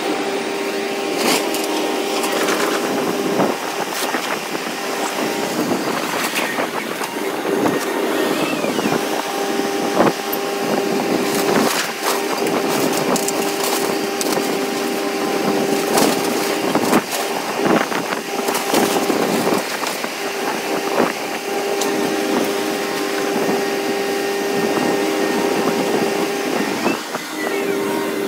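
Caterpillar 340 hydraulic excavator running steadily while its demolition grapple crushes and pulls apart a brick-and-wood house, with frequent irregular cracks of splintering wood and knocks of falling debris over the steady engine note.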